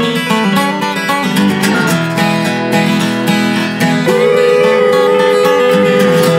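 Background music led by acoustic guitar, with a long held melody note coming in about four seconds in.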